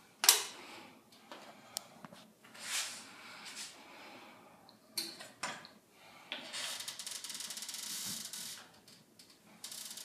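Handling noise from fitting a blind bracket to the window frame: a sharp click, scattered light clicks and knocks, and about two seconds of rubbing hiss past the middle.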